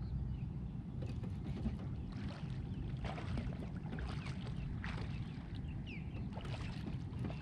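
Steady low wind and water rumble around a small aluminum jon boat, with short irregular splashes as a hooked catfish thrashes at the surface.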